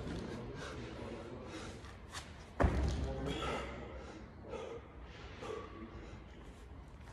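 Loaded barbell with bumper plates: one heavy thud about two and a half seconds in as the lift is completed, fading with a short ring and rattle.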